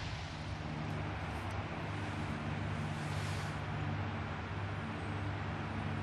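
A steady low engine hum over a constant hiss.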